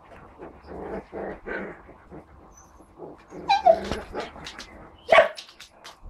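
Husky barking: two sharp barks, the first about three and a half seconds in with a falling pitch, the second, louder one about five seconds in, after some softer sounds.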